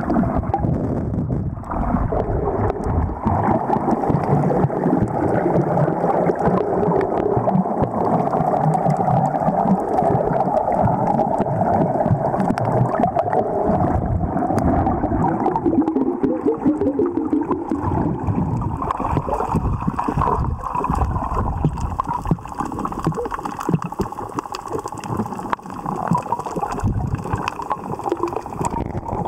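Underwater sound picked up by a camera held just below the sea surface: a steady muffled water noise with many faint scattered clicks and crackles.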